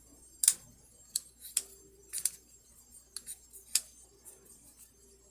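Small knives being opened and closed by hand, their metal blades and spring mechanisms snapping with a series of sharp metallic clicks at irregular intervals.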